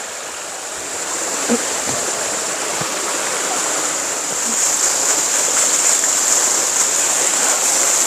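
Mountain-stream waterfall pouring into a pool: a steady rush of falling water that grows a little louder about a second in and again around the middle.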